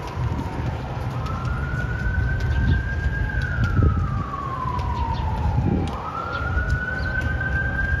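An emergency-vehicle siren wailing, its pitch sliding slowly up and down several times, over a steady low rumble.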